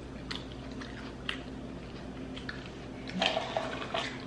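Close-up chewing and mouth sounds of food being eaten, with scattered short clicks. About three seconds in comes a louder stretch of clatter and rustle as food containers are handled on the table.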